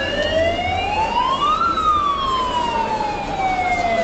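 A siren wailing: its pitch climbs over about a second and a half, then slowly winds back down.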